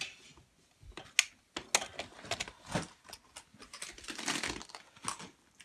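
Irregular light clicks and knocks: a UK mains plug being pushed into a wall socket and its flex handled.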